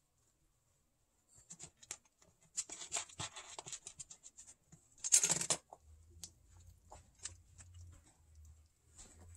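Kittens' paws and claws scratching and scuffling over paper, cards and coin flips on the booth floor: a run of small scratches, rustles and clicks, with one louder rustling burst about five seconds in.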